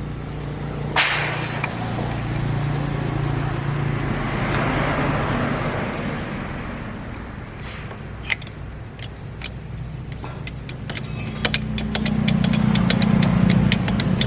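Kubota diesel engine running steadily, growing louder about twelve seconds in, with occasional sharp metallic knocks and clicks.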